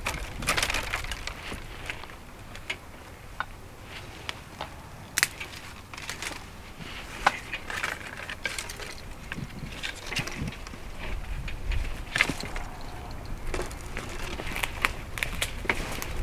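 Footsteps through dry leaf litter and brush, with twigs snapping in irregular sharp cracks and rustles.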